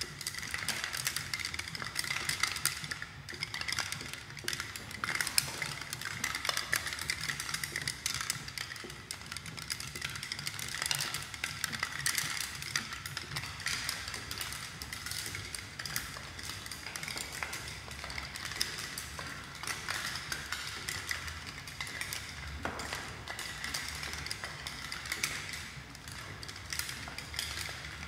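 Kinetic sound sculpture of hanging fluorescent acrylic head-shaped plates, swaying and knocking against one another in a dense, irregular stream of light clicks and taps, over a low hum.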